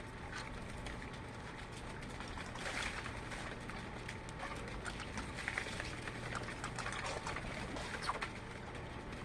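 Birds chirping: many short, scattered calls over a steady low hum.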